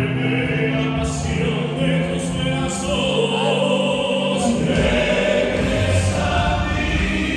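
Male vocal trio singing live in harmony through handheld microphones over a music backing, with long held notes; a deep bass line comes in about halfway through.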